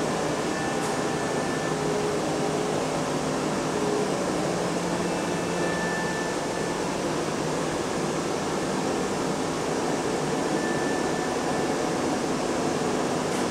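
Steady, even room hiss like a building's ventilation, with faint brief tones now and then underneath.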